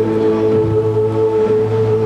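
Slow ambient music with long held notes, over the steady low drone of the tour helicopter.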